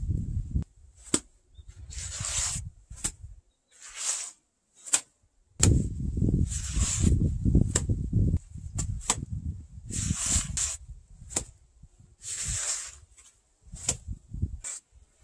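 Gloved hands scooping wet cement mortar and pressing and smearing it onto a foundation wall: short scraping swishes every second or two, with a few sharp slaps.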